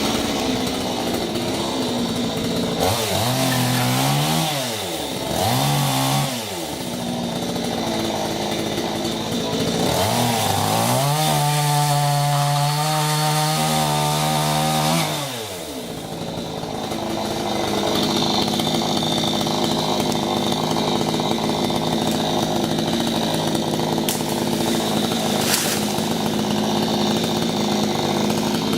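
Two-stroke chainsaw engine revving up and back down twice, then revving up again and holding high for about four seconds before dropping back. It then runs steadily at a lower pitch.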